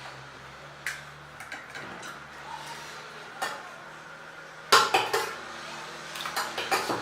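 Pani puri eating with plate and utensil clatter: scattered sharp clinks and clicks, the loudest cluster about five seconds in and a quick run of smaller clicks near the end.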